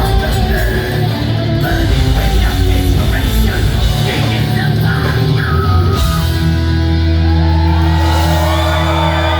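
A live rock band playing loud, with shouted singing over drums and distorted guitar. About six seconds in, the drumming stops and a held chord is left ringing, with guitar notes sliding over it, like the close of a song.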